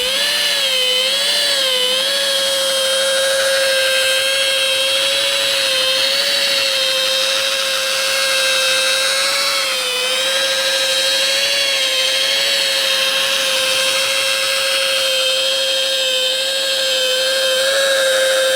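Rotary polisher running at its lowest speed with a steady whine, its pitch wavering slightly, as it compounds bird-dropping etching out of car clear coat.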